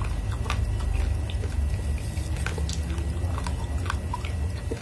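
Raw red rice being chewed, the hard grains crunching as scattered sharp cracks at an uneven pace, over a low steady hum.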